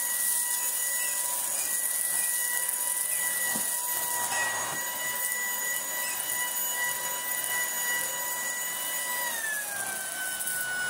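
Tineco A10 Hero cordless vacuum, in handheld form with its mini turbo brush, running over carpet: a steady high-pitched motor whine with rushing air. Its pitch dips slightly about nine seconds in.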